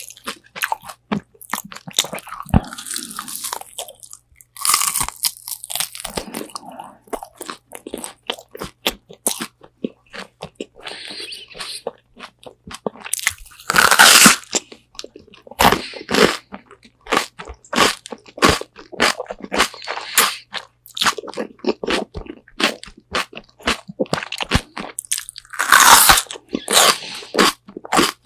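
Close-miked eating of crispy spicy Korean fried chicken wings: a steady run of crackling crunches and chewing, with loud bites about 5, 14 and 26 seconds in.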